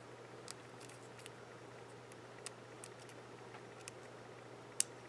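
Faint scattered clicks and rustles of paper flower petals being handled, folded and threaded onto a brad, with one sharper click near the end.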